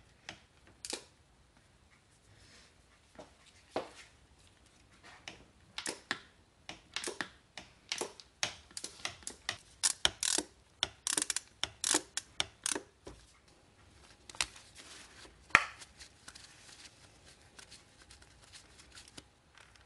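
Ratchet with a 12 mm deep socket clicking as a distributor hold-down bolt is backed out: a few scattered clicks, then a long run of quick clicks in the middle, and a few more clicks and knocks later on.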